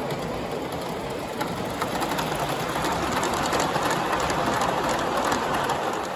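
Gauge one live steam train running past on the track, a steady mechanical rattle with scattered clicks that grows louder as the coaches pass close, about two to five seconds in, then eases.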